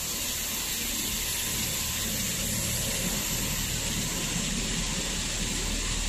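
A steady hiss over the low hum of a running cable sheathing line. The hiss starts abruptly and cuts off just as abruptly about six seconds later.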